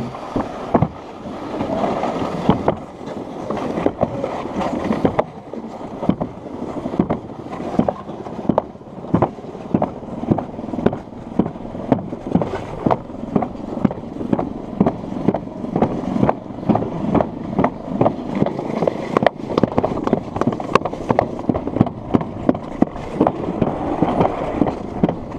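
Plastic alpine slide sled running down a concrete track: a steady rumbling scrape broken by frequent, irregular knocks and rattles as it jolts along.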